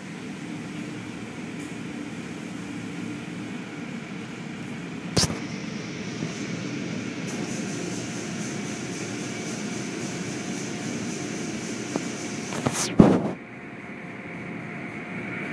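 Automatic car wash machinery running: a steady mechanical rush of motors and spraying water. A steady hum joins about seven seconds in. There is a sharp knock about five seconds in and a louder cluster of thuds near the end as the wet cloth strips swing onto the car.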